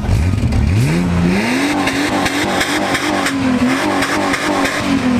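Holden VS Commodore's engine revving up sharply over about the first second and a half, then held at high revs with the pitch wavering up and down as the car is driven sideways.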